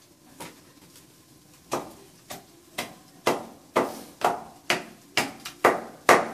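A wooden pestle pounding a paste in a small steel tumbler, each stroke a sharp knock with a brief metallic ring. There is one knock near the start, then a steady beat of about two strokes a second from about two seconds in.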